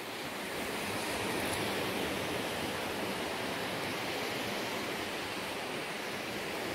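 Gentle surf washing onto a sandy beach, heard as a steady, even hiss of waves.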